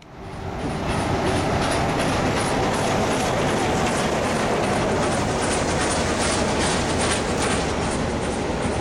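Steam locomotive 625 100, an FS class 625 2-6-0, passing close under the vantage point and working steam, with a fast, steady, regular beat over the run of the train on the rails. The sound swells in over about the first second and stays loud.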